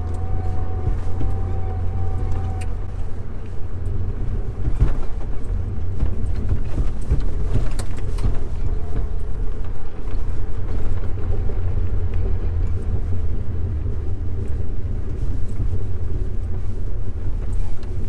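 Jeep Wrangler TJ with a 4.0-litre straight-six driving along a trail: a steady low engine drone with a few sharp knocks and rattles from the rough ground. A faint high whine sounds over the first couple of seconds.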